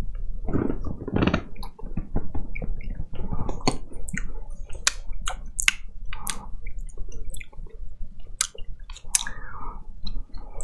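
Close, wet mouth sounds of a person chewing a soft, jiggly mouthful from a cup noodle: many short smacking clicks and squelches throughout.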